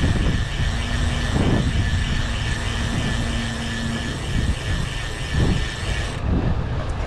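Wind buffeting the microphone of a bicycle rider moving at speed: a dense low rumble that swells and dips unevenly. A faint steady hum joins about a second in and fades about three seconds later.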